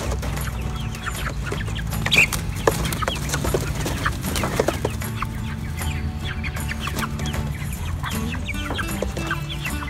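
A flock of Cornish cross broiler chickens clucking, with many short calls overlapping and the loudest about two seconds in.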